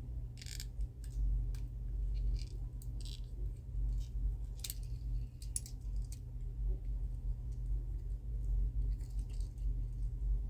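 Scattered small clicks and rattles of hands working twisted wire off a diecast car's plastic packaging, over a steady low hum.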